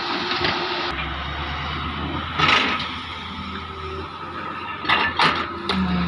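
Doosan DX140W wheeled excavator's diesel engine running steadily under load as the boom lowers and the bucket digs into a trench. Short loud bursts of noise come about two and a half seconds in and twice about five seconds in.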